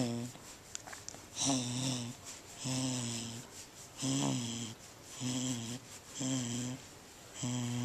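Corgi grumbling contentedly while its belly is rubbed: about six short, throaty groans, roughly one a second, each with a breathy rasp.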